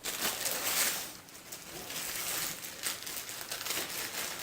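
Packaging rustling and crinkling as a package is opened by hand, with small irregular crackles.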